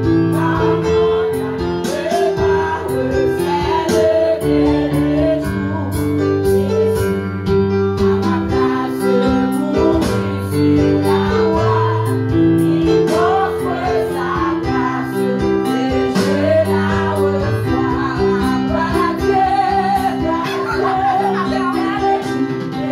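Two women singing a worship song together, with instrumental accompaniment of held chords and a bass line.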